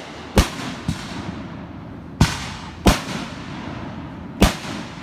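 Fireworks exploding: four loud, sharp bangs, one near the start, two about a second apart in the middle and one near the end, with a fainter pop shortly after the first.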